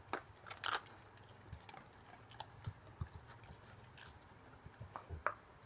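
A Newfoundland dog working a plastic treat puzzle: sharp clicks and clatter of hard plastic lids and pieces knocking together, with the crunch of treats being chewed. The clicks come in clusters about half a second in and again near the end, with soft knocks in between.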